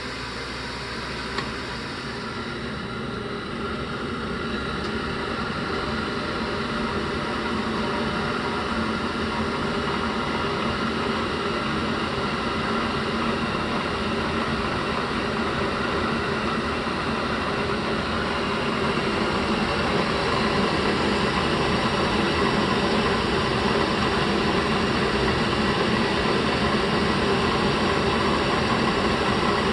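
Navien CH-240 gas boiler making an airplane-like noise on start-up: a steady whooshing drone with several held tones, growing gradually louder over the first twenty seconds and then holding. It is an abnormal noise for this unit.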